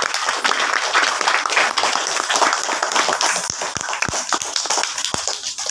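Audience applause with many hands clapping, dense at first and thinning to a few scattered claps after about three and a half seconds.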